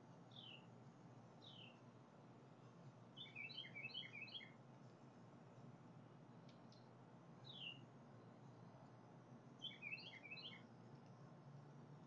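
Faint bird calls: single short chirps falling in pitch near the start and again about seven seconds in. Two quick chattering runs of many short notes come about three seconds in and near ten seconds. A low steady hum lies beneath.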